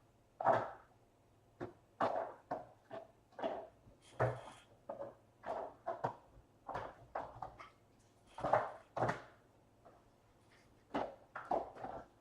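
A run of short handling knocks and rustles, roughly one or two a second, uneven in strength, from trading-card packs, cards and boxes being handled on a tabletop.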